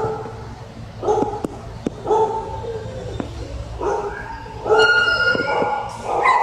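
Several dogs barking and yelping, a string of short calls about a second apart, then a longer, higher-pitched call near the end, with a few sharp clicks in between.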